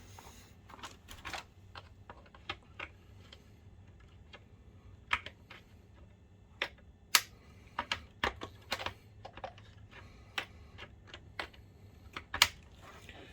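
Scattered, irregular clicks and taps of a screwdriver and small parts being handled against the plastic case of a DLP projector, with louder clicks about seven seconds in and near the end.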